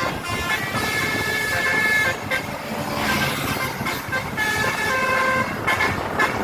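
A tour bus's 'telolet' multi-tone horn playing its tune in several held phrases.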